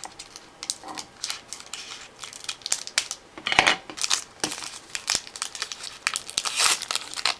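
Trading-card pack wrapper being crinkled and torn open by hand: quick, irregular crackles throughout.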